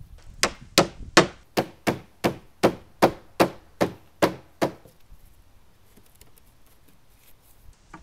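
Hardwood dowels being driven into glued holes in the wooden garage door frame: about a dozen sharp, evenly paced blows, roughly two and a half a second, stopping a little over halfway through.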